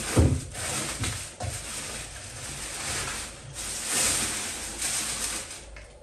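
Crumpled kraft packing paper rustling and crackling in uneven surges as it is pulled out of a cardboard box to unwrap a vase, with a low thump just after the start.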